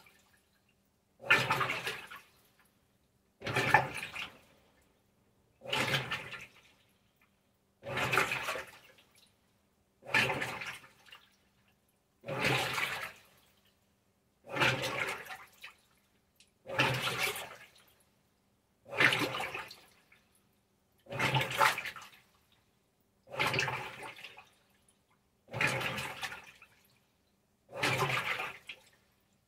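Maytag Centennial top-load washer agitating on the delicate cycle during rinse: water sloshing in short swishes about every two seconds, each a second or so long and fading, with silent pauses between strokes.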